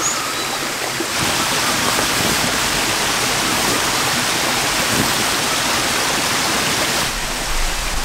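Mountain stream rushing steadily over rocks, an even hiss of flowing water that grows fuller about a second in and eases back near the end.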